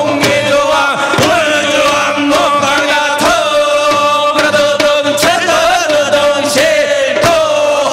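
Male voices singing a Korean samul nori blessing chant (binari), drawing out long wavering notes, with janggu and buk drum strokes and the gongs struck now and then beneath the singing.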